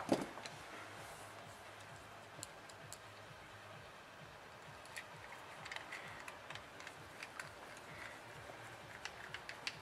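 Faint, scattered small clicks and taps of a screwdriver and metal parts being handled while a replacement MOSFET is screwed onto the heatsink of a switch-mode power-supply board, with a sharper click right at the start.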